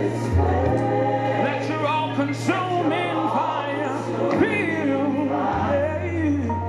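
Gospel music: a choir singing over held bass notes that shift a few times.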